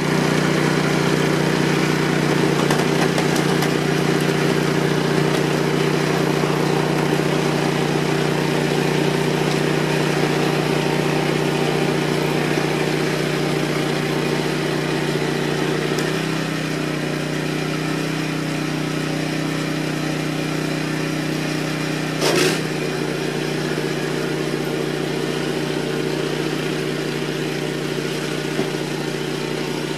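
AL-KO Snowline 760 TE 13 hp petrol snow blower running steadily under load while clearing snow. Its engine note drops slightly and a little quieter about halfway through. A brief loud clatter comes a little past two-thirds of the way.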